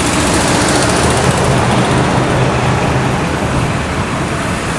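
Road traffic passing close by: a steady, loud wash of car engine and tyre noise.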